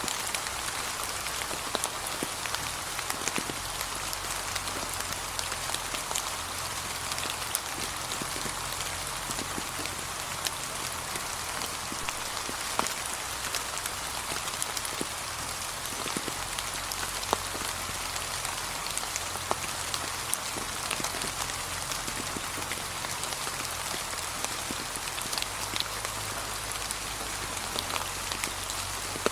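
Gentle, steady rain falling on a path of fallen autumn leaves, with many separate drops ticking through the even patter.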